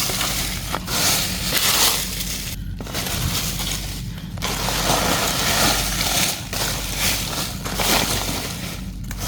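Dry leaf litter and plant debris crunching and rustling in long stretches, with a few short breaks.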